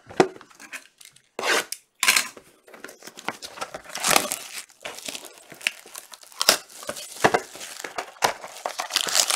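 Plastic shrink-wrap being torn and crumpled off a Panini Obsidian trading card box, in a run of irregular crackling rips with a few sharp clicks near the end.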